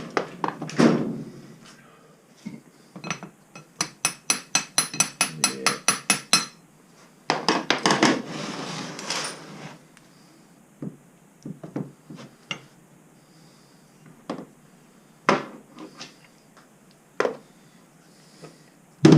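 Hammer striking a steel drift to knock a tightly fitted part off a milling vice's screw: a few light taps, then a quick run of ringing metal strikes, about five a second. A couple of seconds of rasping follow, then odd single knocks.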